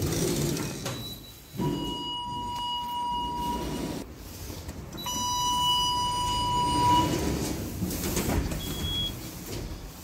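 A lift's electronic tone beeps twice, each beep held steady for about two seconds, over the rumble and sliding of the lift doors.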